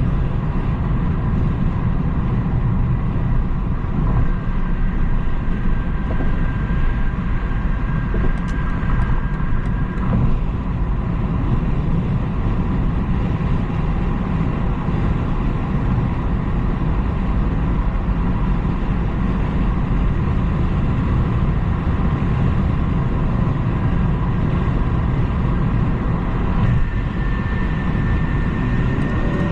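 Steady road and tyre rumble with engine hum from a BMW 330i (G20) being driven at a steady pace, with a faint high whine above it that rises slightly near the end.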